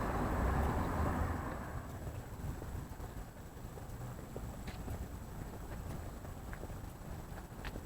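City street ambience: a low, steady rumble of traffic with a few faint clicks, a little louder in the first couple of seconds.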